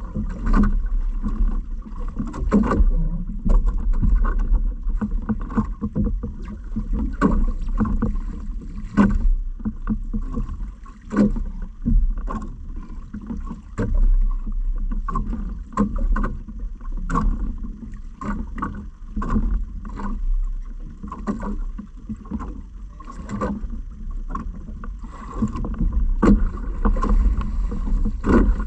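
Small fishing boat on the water: irregular knocks and splashes against the hull, over a steady low rumble.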